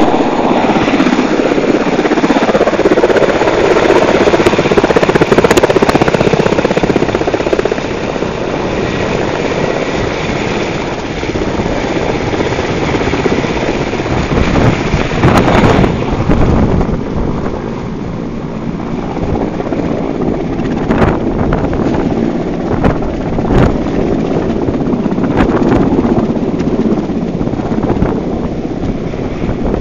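Russian Mil Mi-8 helicopter coming in to land: steady noise of its twin turbine engines and main rotor, loudest in the first eight seconds. From about halfway through, brief gusts of rotor downwash buffet the microphone.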